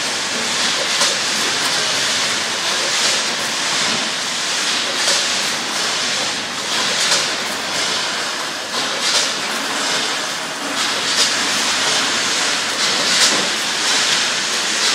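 Ten-head multihead weigher and PFM ZC1 vertical form-fill-seal bagging machine running on almonds, a steady mechanical clatter and hiss. A louder burst of noise comes about every two seconds, keeping time with the machine's 29 bags a minute.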